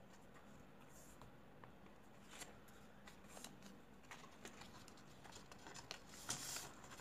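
Faint rustling and crinkling of origami paper being folded and creased by hand, in short scattered bursts, with the loudest rustle near the end.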